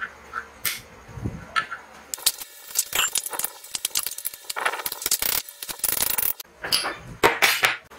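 Small metal tool and fitting clinking and scraping as a fitting is threaded and tightened with a wrench into the top of a steel LPG tank: a rapid run of clicks and rattles, then a few sharper metal knocks near the end.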